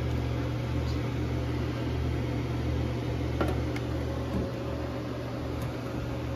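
Steady low electrical hum with fan noise from the inverter and the heater it powers, running under a load of about 1.5 kW. A couple of faint clicks a little over halfway through.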